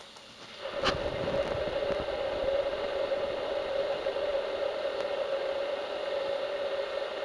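Steady mechanical hum and hiss that starts abruptly with a click about a second in, then holds one constant low tone under the hiss.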